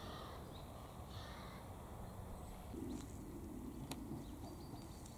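Faint outdoor background with a few short bird chirps and two sharp clicks.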